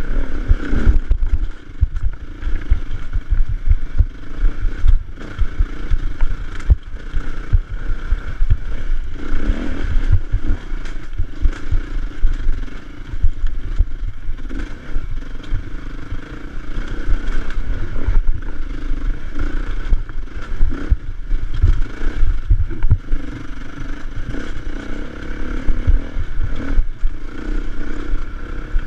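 Dirt bike engine running under load, climbing a rough trail, with frequent thumps and knocks over the uneven ground.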